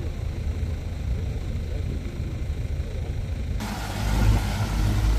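A low rumble. About three and a half seconds in it cuts to a small motorboat's engine running under way, with water rushing past the hull and wind on the microphone, louder near the end.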